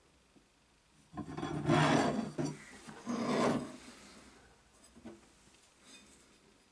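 Old rusty steel files scraping across a wooden workbench as they are slid into place: a longer rasping scrape a second in and a shorter one about three seconds in, then a couple of light knocks.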